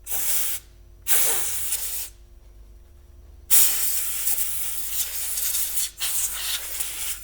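Compressed air from an air compressor hissing in blasts: two short ones, then a longer one of about two and a half seconds and another that carries on. It is blowing leftover bits of old thermal paste off a laptop motherboard, since the paste is conductive and could short other components.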